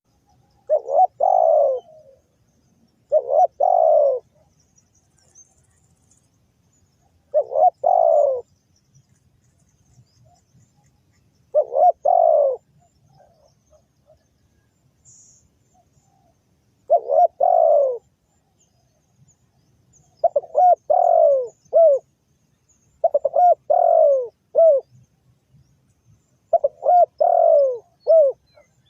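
Spotted dove cooing: eight phrases a few seconds apart, each a short cluster of falling coos, the later phrases broken into three or four quick notes.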